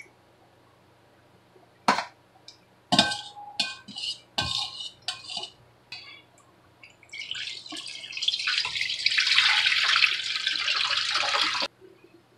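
Stainless steel bowls and a wire mesh strainer clinking and knocking as they are handled, then brine poured from a bowl through the strainer of chicken wings into a stainless bowl, splashing steadily for about four seconds before stopping abruptly.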